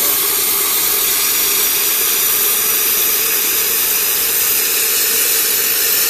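Hot water and steam hissing steadily out of the open hot-water wand of a Vibiemme Super HX heat-exchanger espresso machine as its hot boiler is drained.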